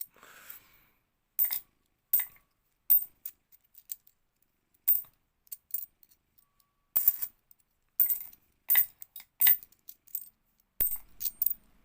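50p coins clinking against one another as they are picked up and dropped one by one while being sorted by hand: irregular sharp metallic chinks, bunched more closely about seven seconds in and again near the end.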